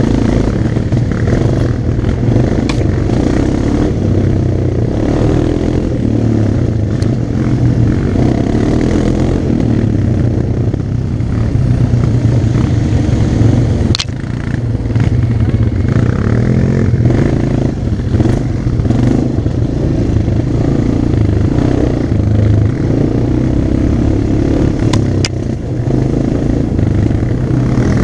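ATV engine running steadily as the quad rides along a dirt trail, picked up from the rider's helmet. A sharp click comes about halfway through and another near the end.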